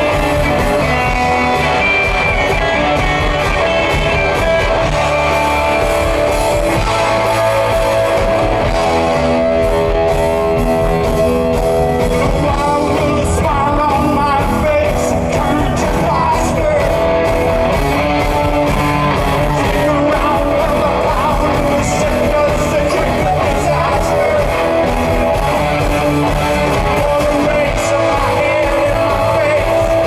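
Live rock band playing: electric guitars, electric bass and drums, with a man singing the lead vocal.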